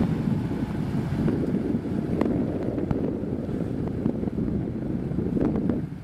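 Wind buffeting the microphone over a Subaru Outback's boxer engine running as the car pulls away through soft sand.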